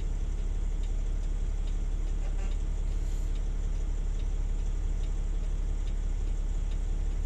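Truck engine idling steadily, a low, even rumble heard from inside the cab.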